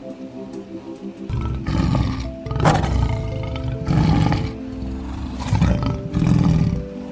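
A series of about five loud, deep animal roars, starting about a second in, over background music with sustained notes.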